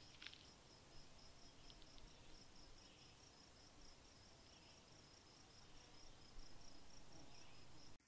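Near silence, with a faint insect chirping: a thin high pulse repeating steadily about four times a second.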